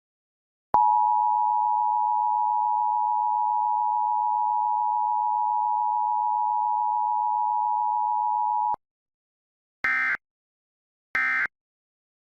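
Emergency Alert System two-tone attention signal, a steady dual tone held for about eight seconds after starting just under a second in. It cuts off, and then two short bursts of screeching SAME digital data follow, the end-of-message code that closes the alert.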